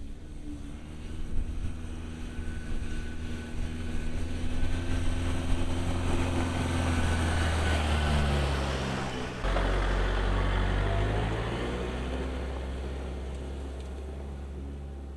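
A 2015 Ford Ranger T6's 2.2-litre turbo-diesel engine and its tyres on a gravel track as the truck drives past. The sound swells as it approaches, the engine note drops as it passes close, and it fades as the truck drives away.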